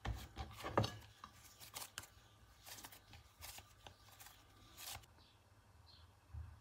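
Hands kneading and gathering soft chhena (fresh cheese curd) into a ball on a ceramic plate: faint rubbing with scattered light taps and knocks of palm and dough against the plate. The knocks are loudest in the first second.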